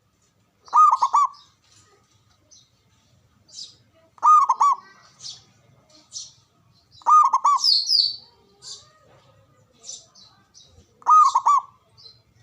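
Zebra dove (perkutut) cooing its song: four phrases, each a quick run of about three ringing, hooked notes, repeating about every three and a half seconds. Short high chirps fall between them.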